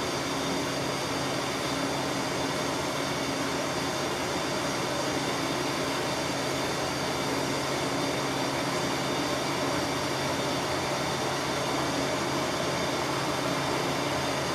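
Plumbing soldering torch burning with a steady hiss, heating chunks of solder in a small copper cap until they melt.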